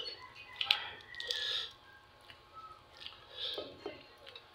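Close-up mouth sounds of a man eating grilled chicken and rice by hand: chewing and lip smacks with a few sharp clicks and short breathy hisses.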